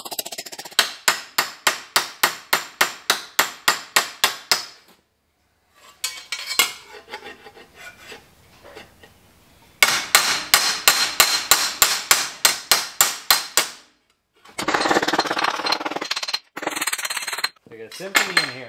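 Hand hammer striking a sheet-steel repair panel held over a piece of railroad rail, shaping a curve into it: steady ringing metal strikes about four a second, in two runs of roughly four seconds. Near the end comes a few seconds of busier, rougher metal noise.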